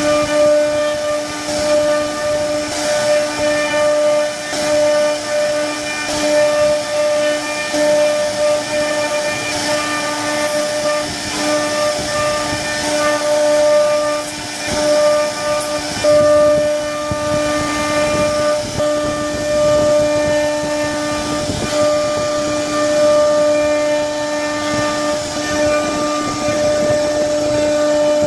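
CNC router spindle running with a steady whine while its bit carves into a wooden panel, with the hiss of wood being cut underneath.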